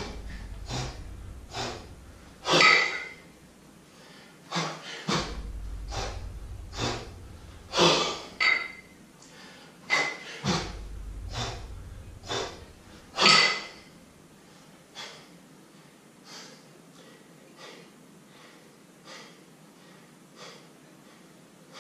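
A kettlebell lifter breathing hard and sharply during double kettlebell jerks, about one forceful breath a second, growing fainter over the last third. A low thud comes three times, about five seconds apart, in the first half.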